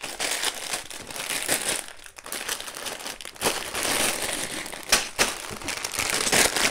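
Sealed plastic bags of Lego pieces crinkling and rustling as they are handled and moved about, with many small clicks and a brief lull about two seconds in.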